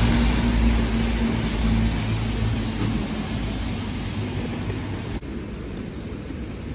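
Steady vehicle noise with a low engine hum, slowly fading; about five seconds in it cuts abruptly to a quieter, steady hiss-like background.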